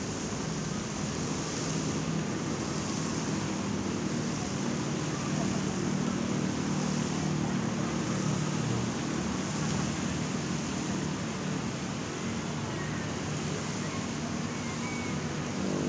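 Steady outdoor city ambience: a constant rushing hum of traffic below, with a low murmur of people's voices.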